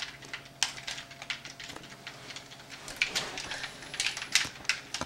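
Irregular light clicking and tapping, several clicks a second, typical of game controller buttons and thumbsticks being worked, over a faint steady hum.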